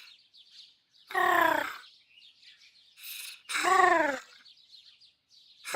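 Cute robot droid vocalizations from the 'tired' set of the Bleep sound library: synthetic electronic calls whose pitch droops downward. One comes about a second in, a short high chirp follows, then another drooping call, and a third starts right at the end.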